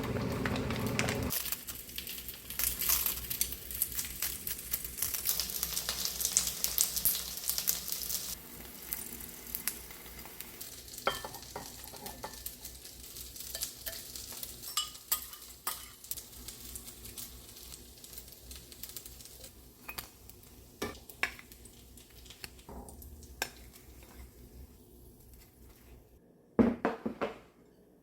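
Food sizzling and crackling in a frying pan as it is stirred, with a utensil clicking against the pan. The sizzle is loudest in the first several seconds and dies down. A short, louder clatter comes near the end.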